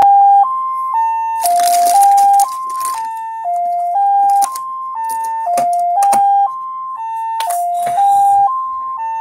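Telephone ringing with an electronic ringtone: a four-note melody of half-second notes, repeating every two seconds. Rustling and a few clicks of handling sound over it.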